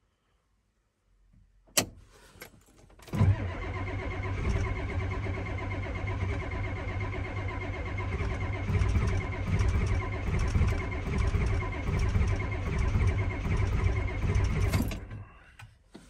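Ford 7.3 IDI V8 diesel cranking on its starter for about eleven seconds, turning over in an even pulse without catching, then stopping; a sharp click comes shortly before the cranking. It fails to fire because the glow plugs are not working in the cold.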